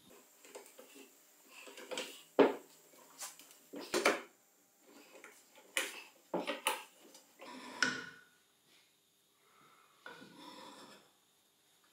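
Steel bar clamps clattering and clicking as their sliding jaws are shifted along the bars and tightened onto a glued-up plywood part, with several sharp metal-on-wood knocks, the loudest about two seconds in, and softer rustling between.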